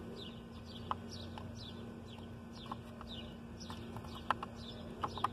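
Small birds chirping over and over in the background, with a few sharp plastic clicks and taps as the blower motor's wiring harness connector is handled, the loudest near the end. A steady low hum sits underneath.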